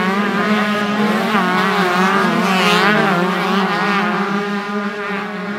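Several 125cc two-stroke motocross bikes racing together. Their engines overlap, rising and falling in pitch as the riders work the throttle through a corner.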